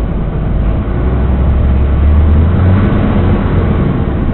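Snowplow truck's engine running, heard from inside the cab as a steady low rumble that grows louder about a second in as the truck begins to move off from a standstill.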